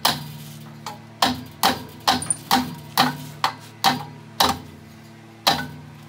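A hammer tapping on the hub of a squirrel-cage blower wheel, about ten sharp metallic strikes at roughly two a second with a short pause near the end, to break loose a hub rusted onto the motor shaft.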